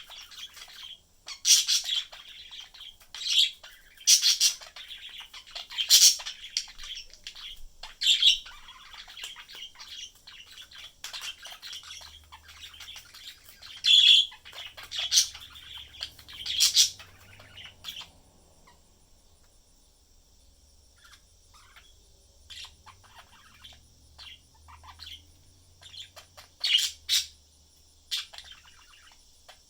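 Pet budgerigars chirping, with loud sharp calls every second or two for the first half, then quieter, scattered twittering, and a few loud calls again near the end.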